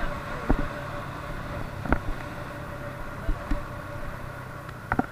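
Moped engine running steadily on the move, with several sharp knocks scattered through, the last two close together near the end.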